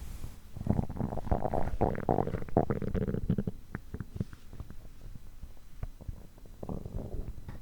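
A human stomach growling and gurgling while digesting after overeating. There is a long bubbling rumble in the first few seconds, then scattered small pops and clicks, and a shorter gurgle near the end.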